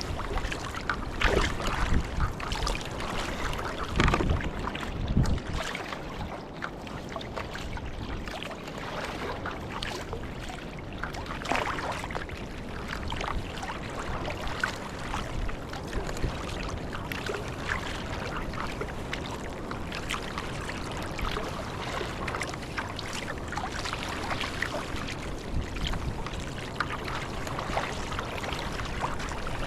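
Kayak paddle strokes dipping and splashing in choppy lake water, with small waves slapping and lapping against the hull. A few louder splashes come in the first half.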